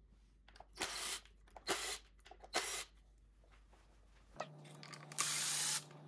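Cordless drill-driver run in short bursts while backing out the screws that hold the phase wires and their retaining clip on an electric unicycle: three brief bursts in the first three seconds, then a longer, louder one after about five seconds.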